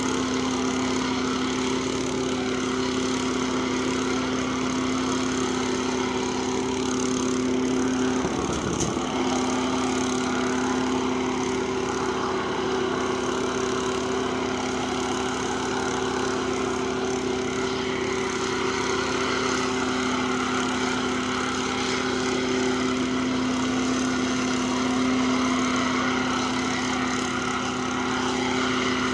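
Small engine of a portable track machine running steadily at a constant pitch, its note briefly broken about eight seconds in.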